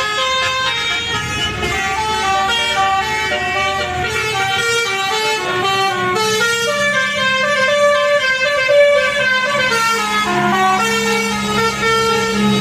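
Telolet horn of a tour bus, a set of multi-tone air horns, playing a melody of quick stepped notes. A low steady drone joins underneath about halfway through.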